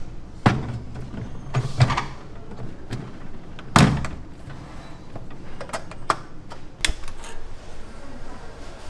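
An aluminium inner pot clanking as it is set down into a commercial electric rice cooker, then the cooker's lid shut with a loud thunk about four seconds in. A few short, sharp clicks follow.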